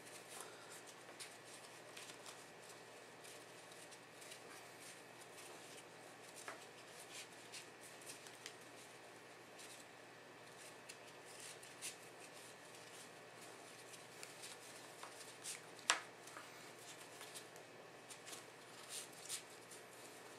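Rope rustling and scuffing in the hands as the turns of a monkey's fist knot are worked tight around a marble core: faint scattered ticks and scrapes, with one sharper click about three-quarters of the way through.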